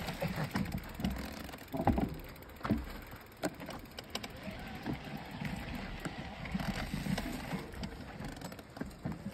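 Mountain bike ridden over a rocky dirt trail: tyres crunching on gravel and rock, with irregular knocks and clicks from the bike as it goes over bumps.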